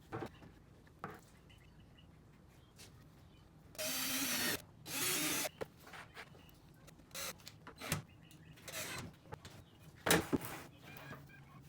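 Woodworking on a wooden enclosure: scattered knocks and taps on wood, with two short harsh rubbing bursts about four and five seconds in, and a few sharp knocks near the end.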